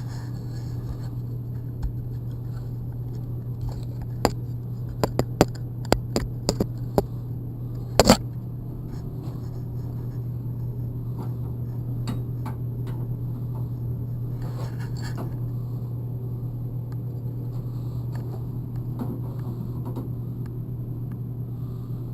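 Clicks, knocks and light scrapes of cut metal stock being handled and checked for square, with a cluster of sharp knocks about four to eight seconds in, the loudest near eight seconds, over a steady low hum.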